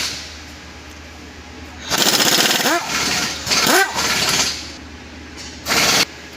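Impact wrench hammering in a burst of about two and a half seconds, its pitch rising and falling as it spins, then a short second burst near the end.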